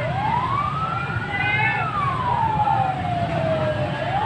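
Fire engine siren wailing. It rises slowly in pitch for about a second and a half, falls back over the next two seconds, and starts rising again near the end, over a steady low rumble.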